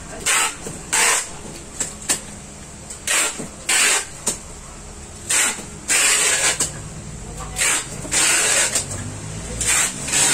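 Packing tape pulled off the roll in repeated short, rasping strips, sealing a package shut.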